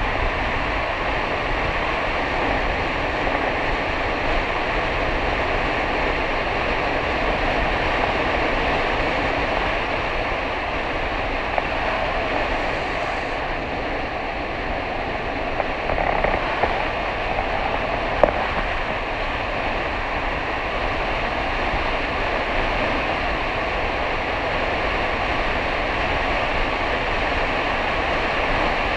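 Steady hiss of wheels rolling at speed over wet asphalt, mixed with wind rushing past the microphone, with a few faint clicks around the middle.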